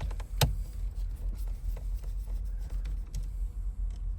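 Small metal parts of a truck steering column being handled during an ignition lock replacement: one sharp click about half a second in, then light ticks and rubbing.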